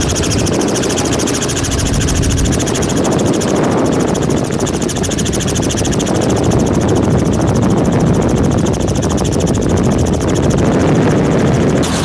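Helicopter in flight: steady engine and main-rotor noise with a fast, even blade beat. Just before the end the sound changes abruptly to a different rotor beat.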